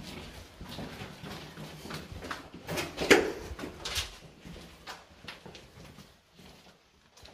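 Irregular knocks and scuffs, the loudest about three seconds in and again at four seconds, dying away toward the end.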